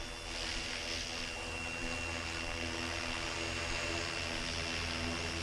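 Flywing FW450 electric RC helicopter in flight, its motor and rotor giving a steady high whine over a rotor hum.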